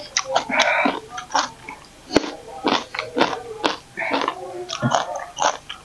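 Person chewing crunchy food close to the microphone, likely raw greens and vegetables: an irregular run of short, crisp crunches and mouth sounds, with one sharper knock about two seconds in.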